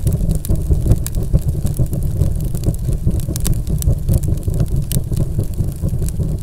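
Cinematic fire-and-smoke logo-reveal sound effect: a steady deep rumble with dense crackling, like burning embers, building toward a blast.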